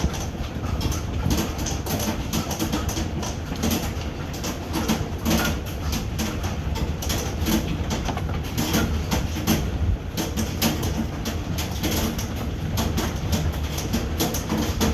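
Hailstones pelting down, a dense, irregular clatter of many sharp impacts over a steady low rumble.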